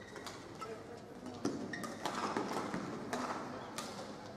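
Badminton rally: several sharp cracks of rackets striking the shuttlecock, with brief shoe squeaks on the court mat and a swell of crowd noise in the middle.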